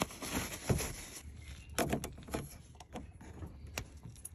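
Paper towel rustling and rubbing as a black plastic drain valve is wiped clean, followed by a few light clicks and knocks of the plastic part being handled about two seconds in and again near the end.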